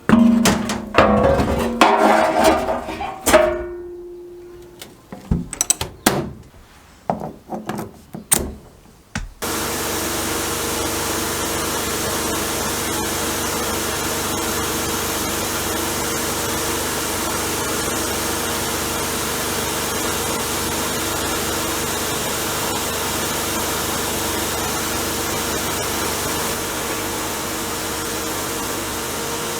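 Metal clanks and knocks with short ringing as the steel jerry can is handled, then a power tool starts abruptly about nine seconds in and runs steadily with a constant hum.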